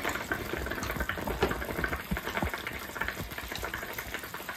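Chicken hotpot simmering in a ceramic clay pot on a tabletop cassette gas stove, a steady bubbling hiss, with a few light taps scattered through it.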